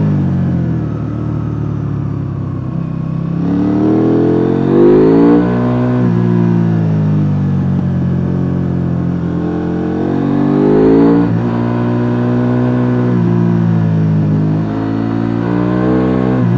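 KTM 890 Duke R's stock parallel-twin engine heard on board, repeatedly accelerating and backing off. It revs up about three and a half seconds in and eases off, builds again to a sudden drop about eleven seconds in, then climbs once more near the end.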